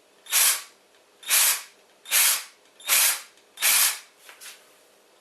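Rhythmic rasping strokes of a hand tool working material, about one every three-quarters of a second: five strong strokes, then two light ones near the end.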